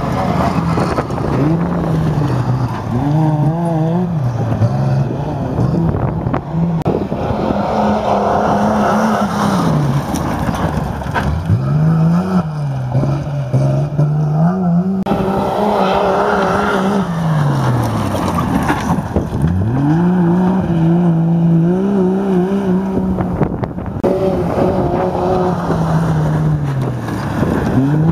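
Engines of autocross race vehicles, GAZ-51 trucks among them, revving hard on a dirt track. The engine pitch climbs and drops back every few seconds as they accelerate and lift off through the corners.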